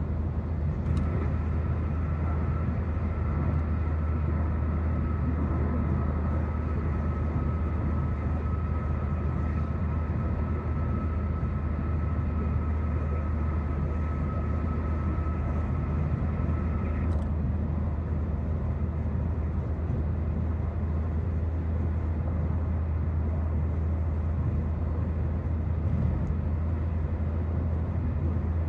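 Steady road and engine noise inside a car cruising on a highway, dominated by a low drone. A thin steady high tone starts about a second in and stops with a click about seventeen seconds in.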